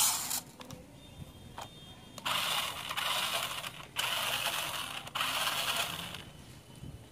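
Toy RC rock crawler's small electric motor and plastic gearbox whirring as its wheels spin freely in the air, in three bursts of about a second each.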